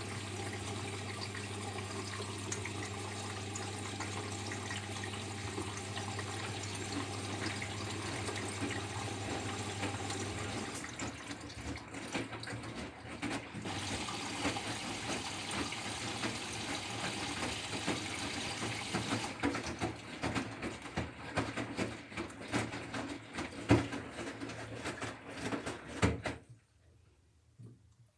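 Bosch Serie 6 front-loading washing machine mid-cycle with water rushing through it. A steady hum runs under the water for about ten seconds, then gives way to uneven splashing with scattered clicks and knocks, which stops abruptly near the end.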